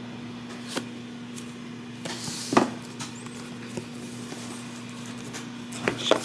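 MacBook retail box being opened by hand: light cardboard knocks, taps and rustling of packaging, the loudest knock about two and a half seconds in. A steady low hum runs underneath.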